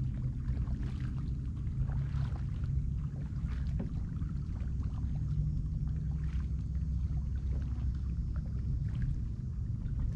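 Kayak paddling: the paddle dips and splashes in the water at an irregular pace, with water splashing and dripping off the blade, over a steady low rumble.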